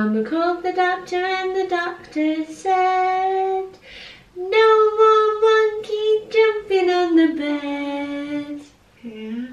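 A voice singing a short unaccompanied tune in long held notes, in several phrases with brief pauses between them.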